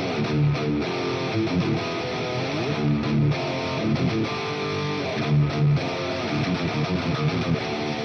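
High-gain distorted electric guitar playing a metal riff, with short repeated low notes and sliding notes. The tone comes from a Mesa Boogie amp into a Marshall 4x12 cabinet, boosted by a low-gain distortion pedal, with noise gate, compressor, reverb and a 300 ms delay.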